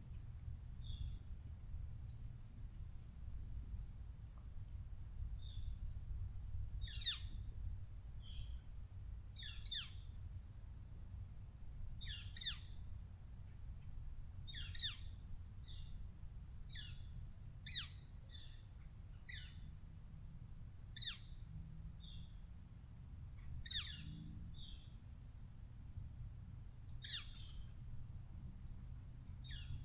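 Wild birds calling: short high chirps and, from about a quarter of the way in, a repeated sharp falling call every two to three seconds, over a steady low rumble.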